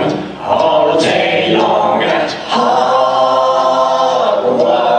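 Several voices singing a cappella together in a chant-like song, ending on a long held chord in the second half.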